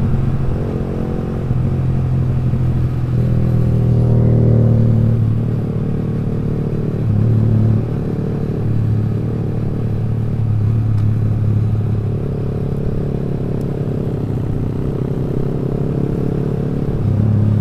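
Yamaha R15 V3's single-cylinder engine running through a loud aftermarket exhaust while riding, a steady note that swells with the throttle a few times. The owner calls the exhaust very noisy.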